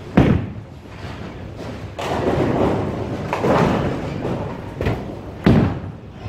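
Bowling ball thudding onto the wooden lane just after release and rolling, with the pins clattering about three seconds in. Near the end a second bowling ball lands on the lane with another sharp thud.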